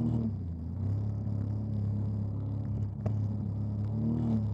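Jet ski engine running at speed through choppy water. Its note drops sharply about a third of a second in, runs steady and lower, then rises briefly near the end. A single sharp knock comes about three seconds in.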